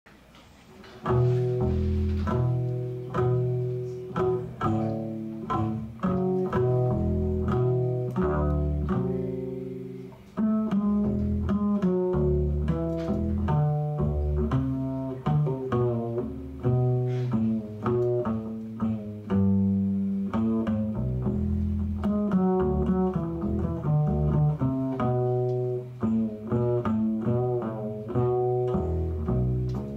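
Upright double bass played pizzicato: a line of plucked notes, each ringing and fading, starting about a second in.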